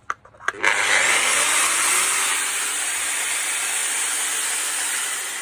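Makita GA9010C 230 mm angle grinder, with no disc fitted, switched on after a couple of clicks about half a second in. It runs up at once to full speed with a loud, steady whir and a high whine, then begins to wind down near the end. This is a test run showing the grinder works.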